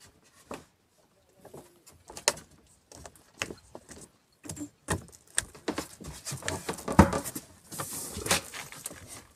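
Irregular knocks, taps and light rattles on the deck of a small fishing boat as a fisherman steps about and handles the fishing line, with one sharp knock about seven seconds in.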